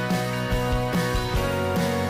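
Background music with a steady beat under sustained chords.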